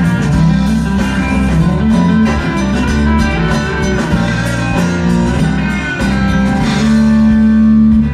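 Live country-rock band playing the instrumental ending of a song, with guitar to the fore, closing on a long held final chord near the end.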